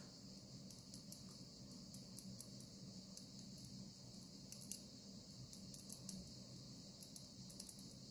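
Near silence: faint room tone with a steady high hiss and scattered faint ticks, one a little sharper just before the middle.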